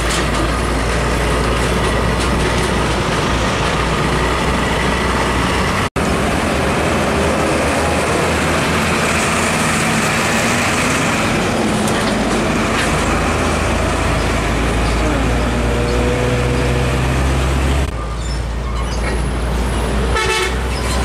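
Heavy diesel trucks towing trailers drive past close by, first a Hino 500 and then Nissan Diesel (UD) trucks, their engines running loud and steady with road traffic. The sound breaks for an instant about six seconds in and shifts again near the end.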